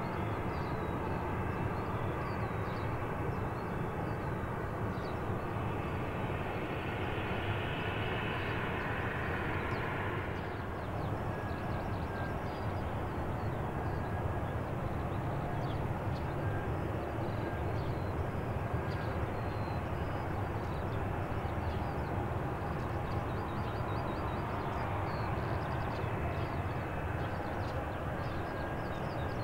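Boeing 737-700's CFM56-7B jet engines running as the airliner rolls out and taxis after landing: a steady jet rumble with a whine. A higher-pitched part of the noise cuts off about ten seconds in.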